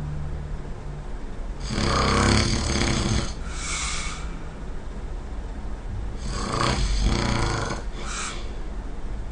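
A person snoring: two long snores about four and a half seconds apart, each followed by a shorter, hissing breath out.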